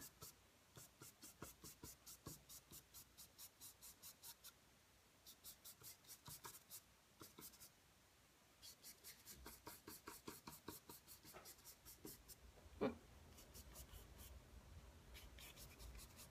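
Faint brush strokes on a canvas as oil paint is applied: quick short scratchy strokes, about three or four a second, in runs of a few seconds with short pauses between. About two-thirds of the way through there is one brief, louder knock.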